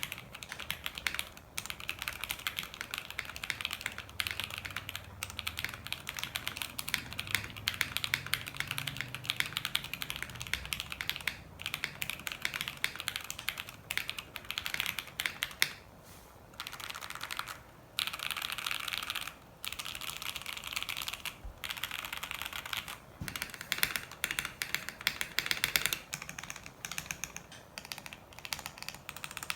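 Steady fast typing on a 60% gasket-mounted mechanical keyboard with an FR4 plate, stock Jwick Black linear switches and PBT keycaps: a dense run of key clacks, broken by a few short pauses after the middle.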